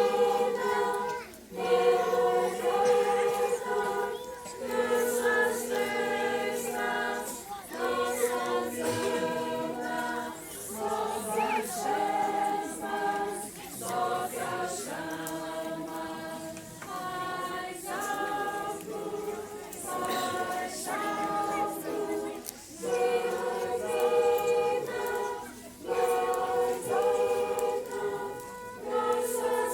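A group of voices singing a song together, in sung lines of held notes about three seconds long, each followed by a brief breath pause.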